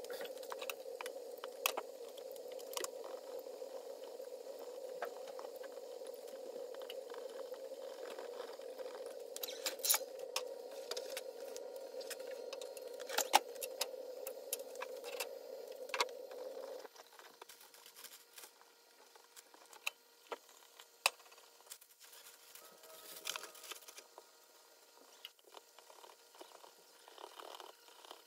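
Cooking sounds: a steady hum for about the first seventeen seconds, then it stops abruptly. Throughout, there are scattered clinks and taps of a metal fork against a nonstick frying pan of plantains and of utensils against a glass mixing bowl.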